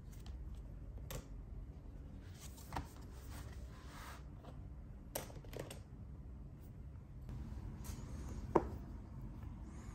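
Faint desk-handling sounds: plastic highlighters and pens tapping and clicking on the desk and a notebook, with rustling as the notebook is shut. A few sharper taps, the loudest a single click near the end.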